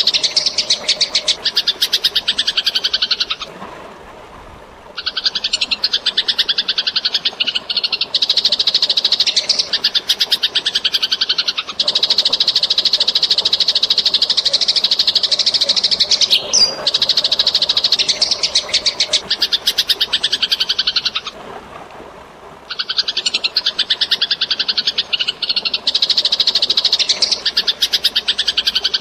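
Eurasian tree sparrows giving their rapid, continuous fighting chatter. The chatter breaks off twice for a second or so, and a softer background of running water shows through in those gaps.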